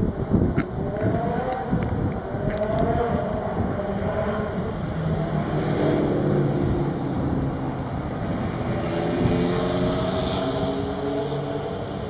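A motor vehicle passing, its engine or motor tone climbing over the first few seconds and then holding fairly steady. Wind buffets the microphone at the start.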